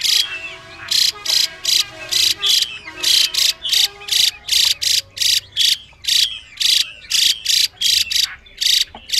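Female Chinese hwamei (Garrulax canorus) giving its harsh, rasping 'xùy' call: short hissing bursts repeated evenly about three times a second. This is the call keepers play to rouse male hwameis into singing.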